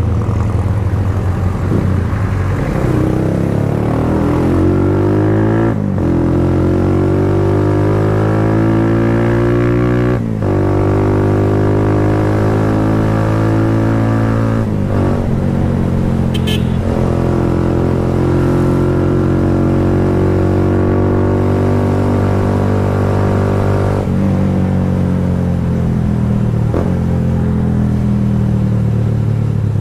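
Kawasaki Rouser 180's single-cylinder engine running through an Akrapovic slip-on muffler, pulling through the gears: the pitch climbs, breaks briefly at each upshift, then climbs again, with a longer steady stretch in the middle.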